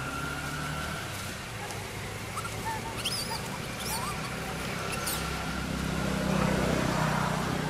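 Macaques squeaking during a scuffle: several short, high squeaks and chirps in the middle, over a steady low hum, with a rustling swell near the end.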